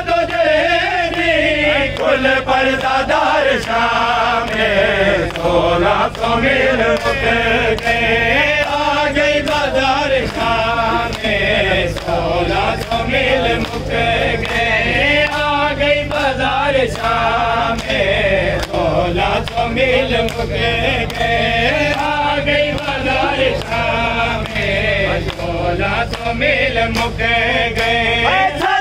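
A group of men chanting a nauha, a Shia lament, in unison. A steady beat of hands striking bare chests (matam) keeps time under the voices.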